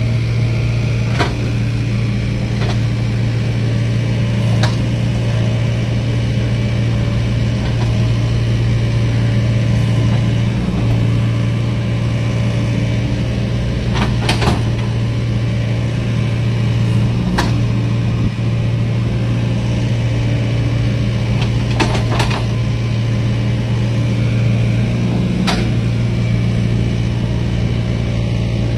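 Excavator's diesel engine running steadily, with a handful of sharp knocks scattered through, from its work unloading coal slag from a barge.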